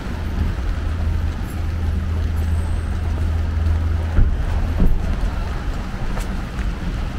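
Steady low rumble of city street traffic over a hiss of background noise, with two short knocks a little past the middle.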